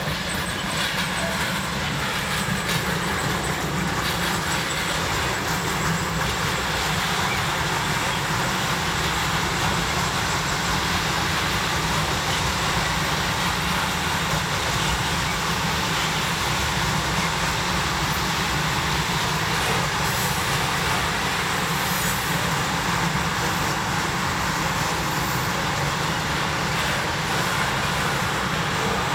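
Freight train passing, with a steady, unbroken noise of rolling wagons.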